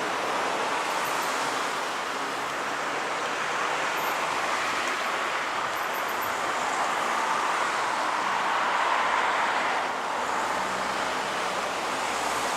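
Steady rush of wind noise on a bicycle-mounted camera's microphone while riding, mixed with road traffic noise.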